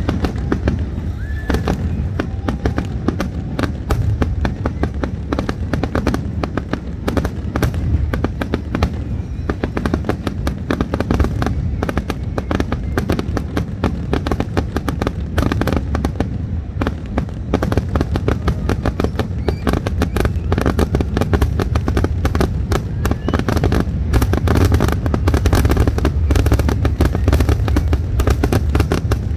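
Aerial fireworks display going off in a dense, rapid run: many bangs and crackles a second over a deep rumble, growing a little louder near the end. This is typical of a show's finale.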